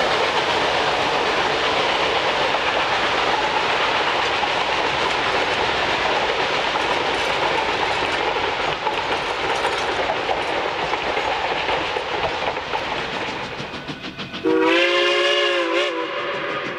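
Durango & Silverton narrow-gauge steam locomotive No. 473, a K-28 2-8-2, running by with its train in a steady rolling noise that fades away over the last few seconds, then one blast of its steam whistle, about a second and a half long with a slight waver in pitch, cut off sharply near the end.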